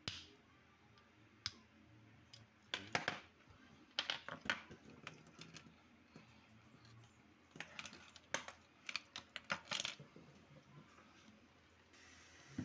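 Light clicks and clinks of small hard objects, in irregular clusters: a few single taps early, then quick runs of clicks about three, four and eight to ten seconds in.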